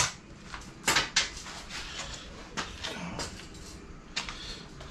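Welded steel angle-iron frames handled on a concrete floor: a handful of separate metal knocks and clanks, spread irregularly over a few seconds.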